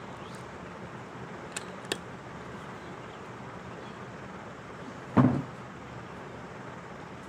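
A single shot from a 50 m smallbore rifle: one short, loud report about five seconds in. Two faint clicks come before it, about two seconds in.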